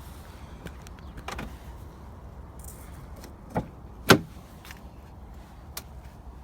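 A few sharp clicks and knocks at a Range Rover Sport TDV8, the loudest about four seconds in, over a steady low rumble.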